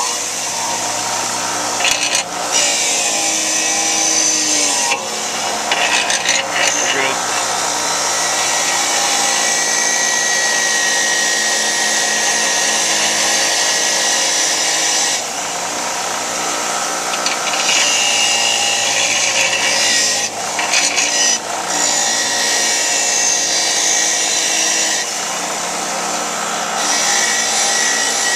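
An 8-inch bench grinder's motor running steadily while the rusty blade of a drawknife is held against the wheel, grinding the rust off with a harsh rasping hiss. The grinding eases off a few times for a second or two as the blade is lifted and repositioned, leaving just the motor's hum.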